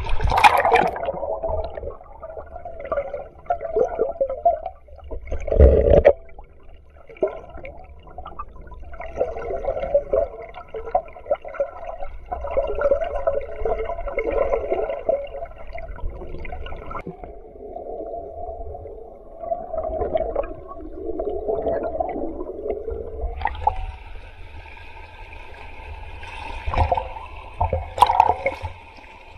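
Muffled gurgling and sloshing of creek water heard with the camera dipping in and out of the water, as during spearfishing in a shallow stream. There are sharp splashes at the start, about six seconds in and near the end.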